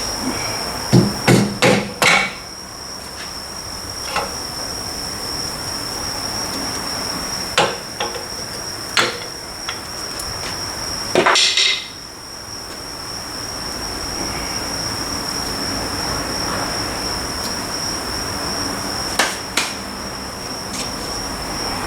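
Hand tools knocking and tapping on metal while a Suzuki Carry's rear differential is taken apart, in scattered groups of sharp hits with quiet gaps between. A steady high-pitched insect chirring runs underneath.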